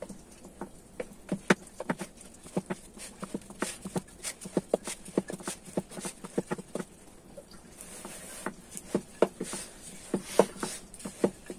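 Chapati dough being patted flat and rolled out on a wooden rolling board with a bamboo rolling pin: an irregular run of light taps and clacks, several a second, with a soft rubbing for a stretch in the second half.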